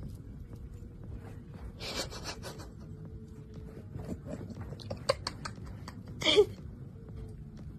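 Thin plastic glove and bag crinkling in clicks and crackles around a lump of food held out to a cat. About six seconds in there is one short, loud vocal sound with a wavering pitch.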